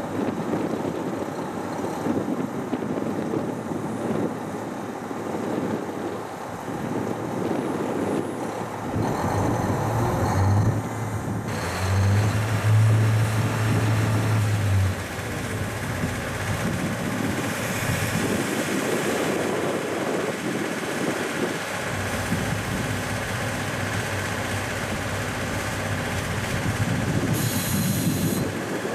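JNR Class C58 steam locomotive running slowly on shunting moves. A steady low hum lasts several seconds in the middle, and there is a brief high hiss near the end.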